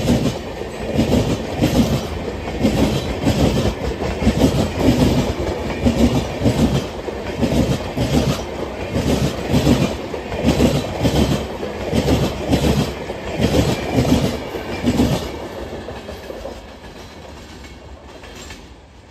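Express train's coaches running past at speed, their wheels clattering over rail joints in a steady clickety-clack of about two knocks a second. The clatter fades away from about fifteen seconds in.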